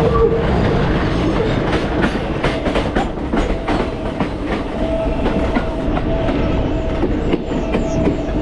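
New York City subway L train running along the track: a steady rumble with repeated clacks of the wheels over rail joints. A faint steady whine joins in about five seconds in.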